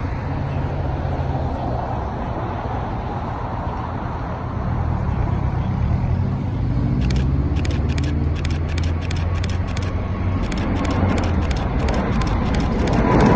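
Twin GE90 turbofans of a Boeing 777-300ER at takeoff thrust, heard from a distance as a steady low rumble that grows louder about halfway through as the airliner accelerates down the runway and lifts off.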